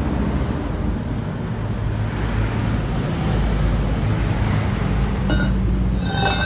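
Steady low rumble of road traffic, with a few brief high-pitched tones near the end.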